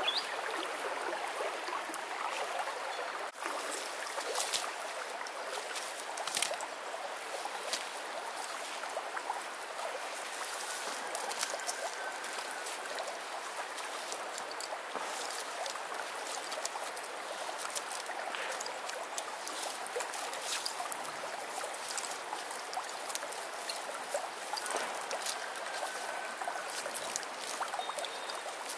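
Steady trickle of a shallow stream, with scattered light clicks and rustles as a cast net is shaken out and untangled.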